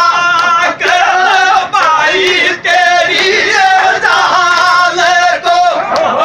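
Men singing a Gujjar dhamal folk song in loud, high, held notes with a wavering pitch, the phrases broken by short breaks.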